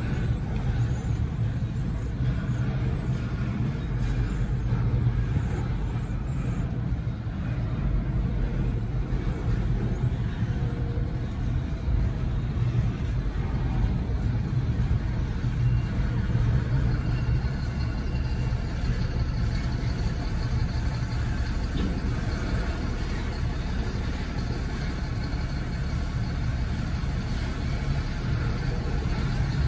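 Double-stack intermodal freight cars rolling past close by: a steady, even rumble of steel wheels on rail joints, heard from inside a car.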